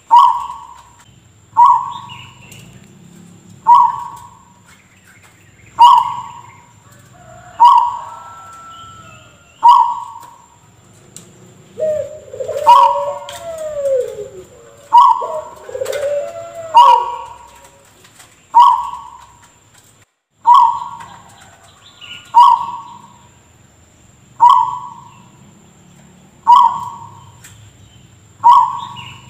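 Zebra dove (perkutut) giving an odd, short cough-like call, repeated about every two seconds. Midway, lower gliding calls from another bird overlap it for a few seconds.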